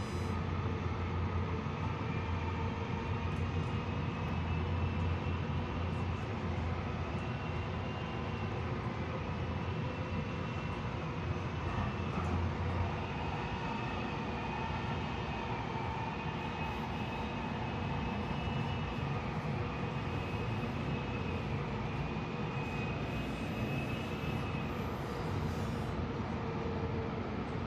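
Inside a moving passenger train car: steady rumble of the train running on the rails, with a high, wavering whine through most of it. The low rumble eases about halfway through, and the whine fades out near the end.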